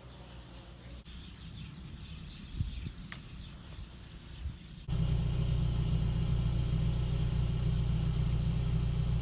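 Faint outdoor background with a couple of light knocks. About five seconds in, it cuts abruptly to the steady, much louder road and engine noise of the Peugeot 306 XSi driving.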